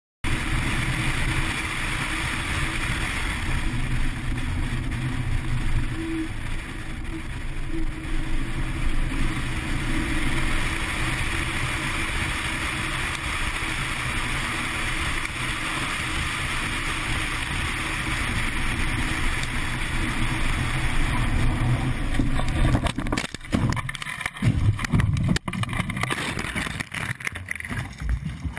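BMW car driving fast, with steady wind and road noise rushing over the camera mounted on the car's side. Near the end the noise breaks up into a run of irregular thumps and knocks as the car crashes off the road.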